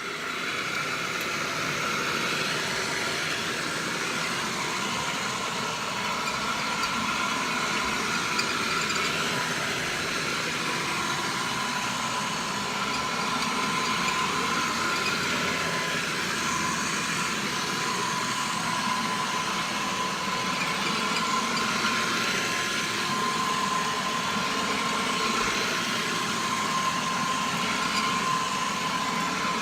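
Hoover Model 105 vacuum cleaner running steadily: an even motor hum with a steady whine, which the owner calls pretty quiet.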